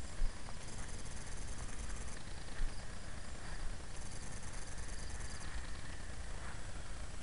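Faint high whine of a small foam RC plane's electric motor flying at a distance, over a low rumble, with two brief bumps early on.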